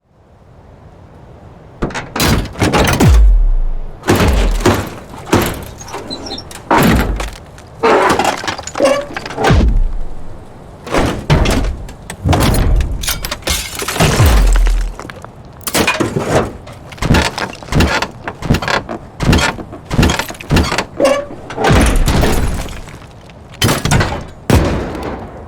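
A run of designed mechanical robot sound effects: metallic hits, clanks and crashes one after another every second or so, several with a deep low boom. A background ambience fades in over the first two seconds underneath.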